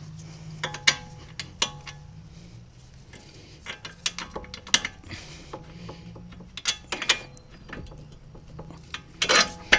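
Irregular metallic clicks and clinks of steel parts and tools being handled at a car's front hub and steering knuckle, several with a short ringing tone, bunching together near the end.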